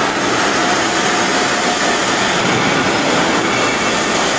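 Steady hiss of a TIG welding arc on an automatic stainless cylinder seam welder, running without a break during the weld.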